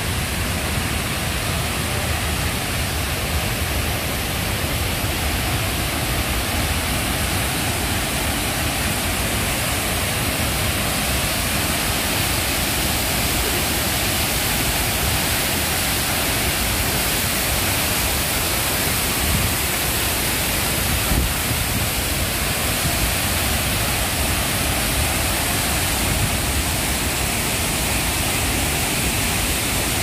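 Wachirathan Falls, a large waterfall pouring heavily down a rock face into spray: a loud, steady, even rush of water.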